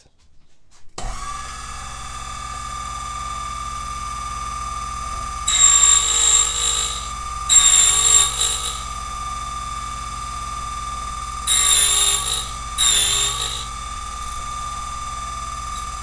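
Silca Flash 008 key-cutting machine switched on about a second in, its motor running with a steady whine; four times the cutter bites into a brass KW1 key blank with a loud grinding rasp, cutting the depth-two cuts guided by a space-and-depth key.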